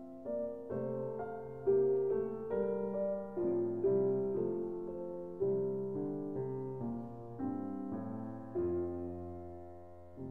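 Background music: a slow solo piano melody, single notes struck and dying away, with a longer held note near the end.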